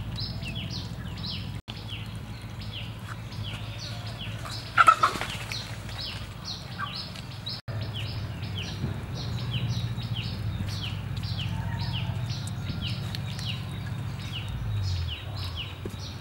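High, short chirping calls, each falling in pitch, repeated about three times a second over a low steady hum. About five seconds in there is one brief loud clatter.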